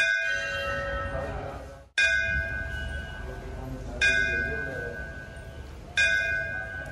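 Hindu temple bell struck about every two seconds, four strikes in all, each ringing on with several high tones that slowly fade.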